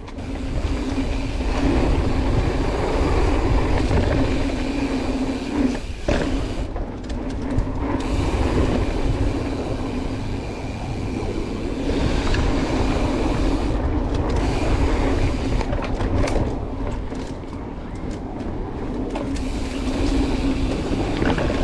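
Mountain bike rolling fast down a dirt singletrack, with knobby tyres on dirt, chain and frame rattling over bumps, and wind noise on the mounted camera.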